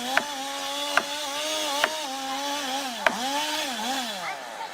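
Chainsaw running at high speed, its pitch dipping as it bogs in the cut, then dropping off near the end. Four sharp cracks or knocks are scattered through it.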